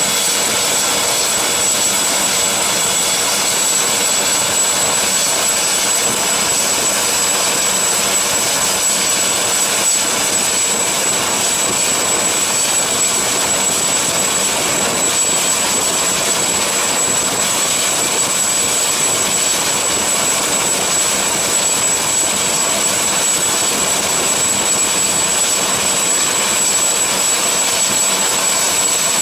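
Helicopter turbine engines and rotor running steadily on the deck: a constant rushing noise with a steady high-pitched whine.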